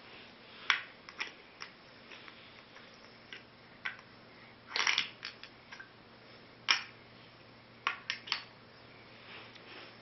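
Wooden pieces of a shape-sorting peg board toy clacking against the pegs, the board and each other as a toddler handles them: sharp knocks at irregular intervals, with a longer clatter about five seconds in.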